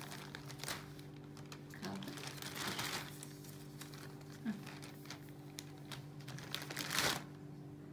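Thin plastic shopping bag crinkling and rustling in several bursts as a tabby kitten noses and pushes its way into it; the loudest rustle comes about seven seconds in.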